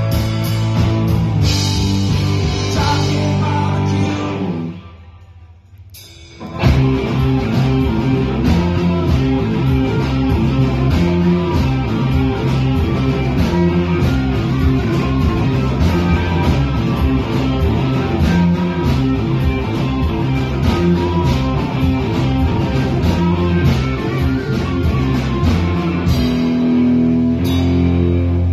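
Live rock band playing, with electric guitars over a low bass line and drums. About five seconds in the band stops for a moment and then comes crashing back in together.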